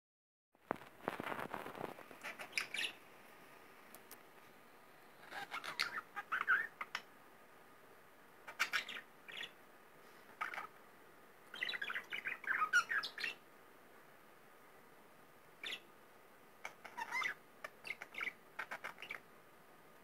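Grey budgerigar chattering and chirping in short bursts separated by brief pauses, with a few sharp clicks mixed in.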